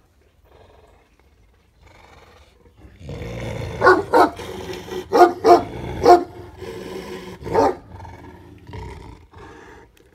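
Large shepherd dog growling and barking: a growl starts about three seconds in, followed by about six loud barks over the next four seconds, then softer growling.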